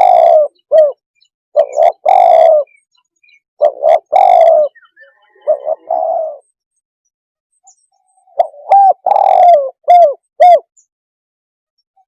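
Spotted dove cooing loudly in repeated phrases of low coos, each about a second long with short gaps between. After a pause of about two seconds, a final run of several quick coos ends a little before the close.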